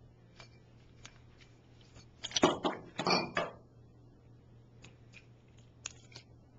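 Small hard latch parts being handled: scattered light clicks, with a louder clatter of knocks about two and a half to three and a half seconds in.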